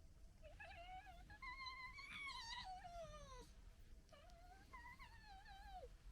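Red fox giving long, wavering whining calls: the first climbs higher in pitch in the middle and then slides down, and a second, shorter whine follows near the end.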